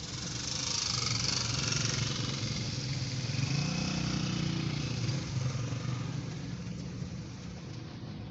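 Traffic on a rain-wet road: a steady engine hum under tyre and spray hiss. The hiss swells about a second in, and a vehicle's engine note rises and falls as it passes around the middle.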